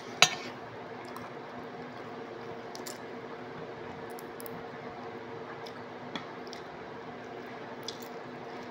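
Fingers peeling the shell off a cooked shrimp, with soft wet squishing and a few faint crackles of shell, over a steady low hum. A sharp click sounds just at the start.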